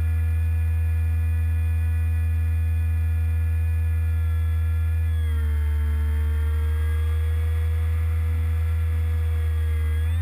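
Parkzone Icon A5 RC plane's electric motor and propeller, close to an onboard camera: a steady whine over a low hum. The pitch eases slightly lower about five seconds in and climbs sharply near the end as the motor speeds up.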